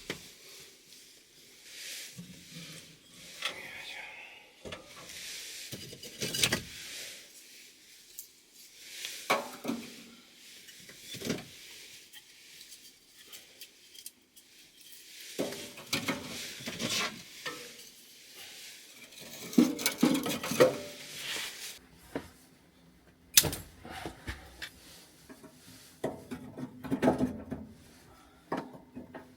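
Cookware and utensils clinking and clattering irregularly during cooking, with several sharper knocks.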